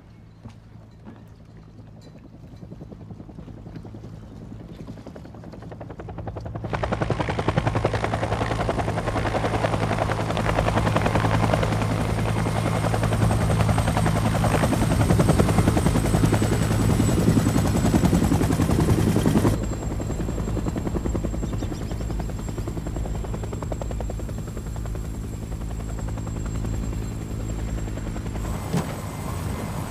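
Helicopter engine and rotor drone: a steady low drone with a thin high whine. It builds over the first several seconds, jumps louder about a quarter of the way in, and drops back somewhat about two-thirds of the way through.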